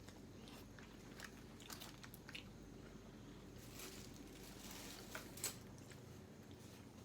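Faint close-up eating sounds: a person biting and chewing food, with scattered small crunches and mouth clicks.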